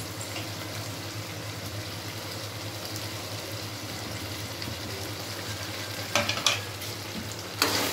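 Mutton pieces frying in a steel kadai, a steady sizzle as the last of the cooking liquid boils down. Two short sharp clatters near the end.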